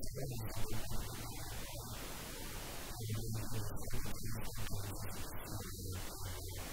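Low electrical hum under a hiss of static in the recording.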